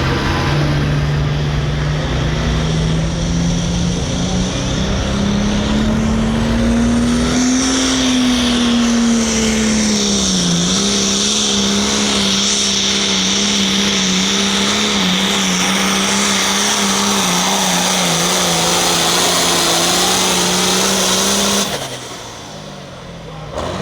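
Hot Farm class pulling tractor's turbocharged diesel engine at full throttle during a pull. Its pitch rises over the first several seconds, dips briefly and then holds steady. It cuts off sharply near the end.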